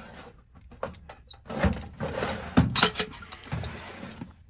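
Small metal cabinet drawers being slid shut and pulled open, with sharp clacks of drawer and handle about one and a half and two and a half seconds in. Plastic parts bags rustle between the clacks.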